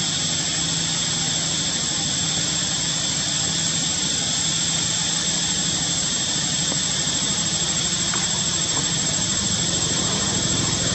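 Steady, unbroken outdoor drone: a high, constant whine over a low engine-like hum, unchanging throughout.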